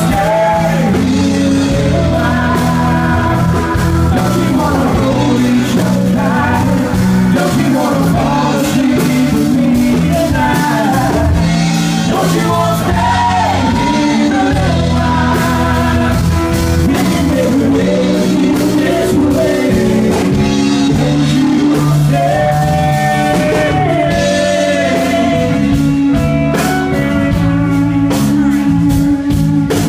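Live country-rock band with drums and electric guitar playing a slow ballad, a male and a female singer singing together over it.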